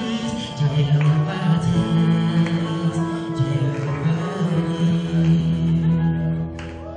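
Background music with held notes over a sustained low line, dropping in level near the end.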